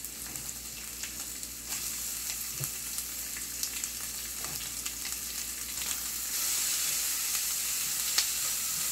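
Chopped onion and capsicum frying in hot oil in a stainless steel kadai, with a steady sizzle and scattered light taps and scrapes of a silicone spatula against the pan. The sizzle gets louder about two seconds in and again about six seconds in, as more onion goes into the oil.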